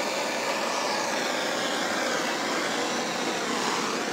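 Blowtorch flame burning with a steady hiss as it is passed over jute rope to singe off the loose fibres.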